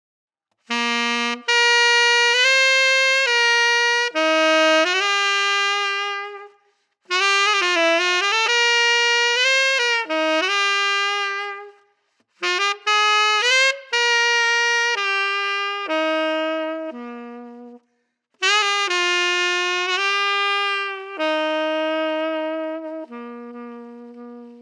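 Unaccompanied saxophone, a 1959 Selmer Mark VI played through a bright, step-baffle SYOS signature mouthpiece, playing a jazz solo transcription in four phrases with short breaths between them.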